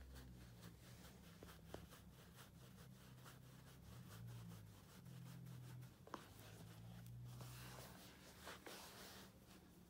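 Near silence over a faint low hum: soft rubbing and a few light clicks as a socked foot slides in and out of a leather loafer on a carpet.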